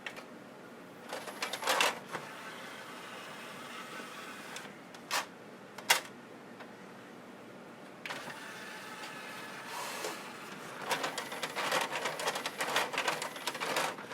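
JVC seven-disc CD/DVD changer's tray and disc carousel mechanism running: a small motor whirring, with two sharp clicks about five and six seconds in and a stretch of rapid clicking and rattling near the end.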